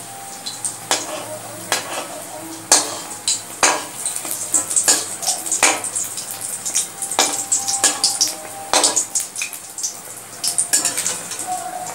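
Urad-dal batter on bread sizzling steadily as it shallow-fries in oil in a metal kadai, with a metal spoon clicking and scraping against the pan every second or so.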